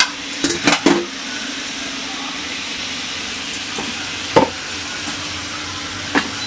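Diced chow chow (chayote) steadily sizzling in an aluminium kadai with a little water just added. A metal spatula clinks and scrapes against the pan a few times about half a second in, with single clinks later.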